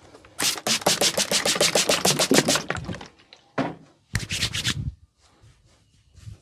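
Fast, rhythmic massage strokes of a masseur's hands on the body: a run of quick slaps or rubs at about eight a second lasting about two seconds, then a shorter run of about six strokes after a brief pause.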